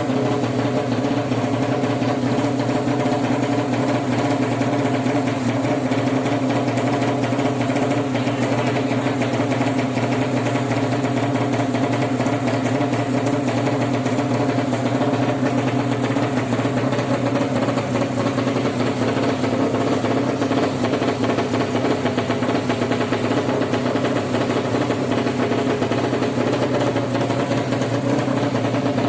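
Racing engine of a Suzuki Satria FU bored out to 200cc, a single-cylinder four-stroke, running at a steady idle with no revving.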